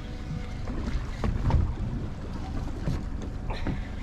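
Steady low rumble of a small boat out on the water, with wind buffeting the microphone and a dull knock about a second and a half in.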